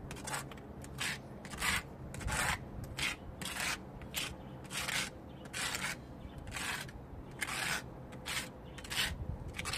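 A small hand trowel scraping wet plaster onto a block wall and smoothing it into holes, in short repeated strokes, about one and a half a second.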